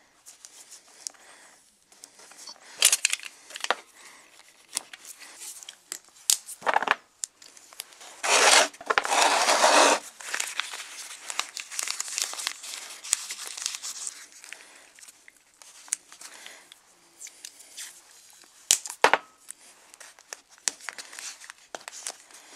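Paper being torn and crinkled by hand as it is pressed round a painted iron base to mask it, with a long tearing sound about eight seconds in and sharp snaps here and there.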